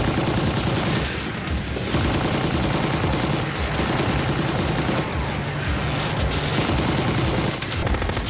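Sustained automatic machine-gun fire, a rapid stream of shots with hardly a pause.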